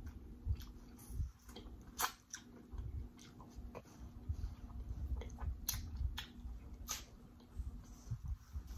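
Close-miked chewing and biting into a piece of corn on the cob, wet and sauce-coated, with irregular sharp mouth smacks and clicks over a low chewing rumble.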